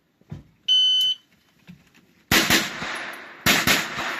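Electronic shot timer giving one short, high start beep, followed about a second later by a pistol-caliber carbine firing: two quick shots, then another fast string of shots, each echoing across the range.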